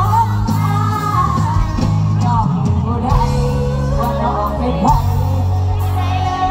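Live Thai mor lam band music with a singer's voice sliding over a steady bass line.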